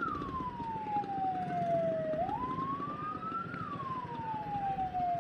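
Ambulance siren wailing in slow cycles of about three and a half seconds: one tone sinks gradually, jumps up abruptly and climbs again before falling. Engine and traffic noise run beneath it.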